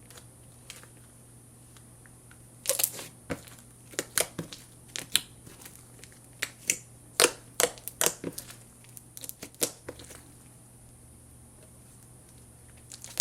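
Hands squeezing and poking a freshly made slime, giving an irregular run of sharp pops and crackles, mostly between about three and ten seconds in.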